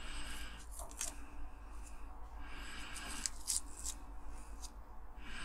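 Masking tape being peeled off the painted body of a diecast toy car, a crackling, papery peel in several short pulls with a few sharp clicks.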